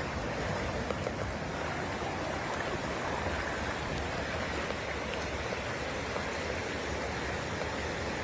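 Steady, even rushing noise of heavy rain and running floodwater.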